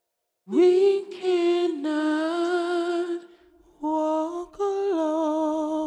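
A single voice singing slow, long-held notes unaccompanied, with a wide vibrato. It comes in out of silence with an upward scoop, pauses briefly past the halfway point, then resumes, lifting a step before settling back down.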